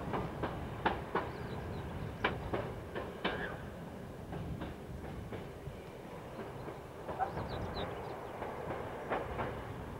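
Two-car first-generation diesel multiple unit running along the branch line: a steady rumble with wheels clicking over rail joints, the clicks coming thick in the first three seconds, thinning out, then picking up again near the end.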